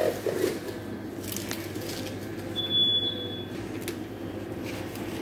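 Shop room tone: a steady low electrical hum with a few faint clicks, and a single high electronic beep lasting about a second near the middle.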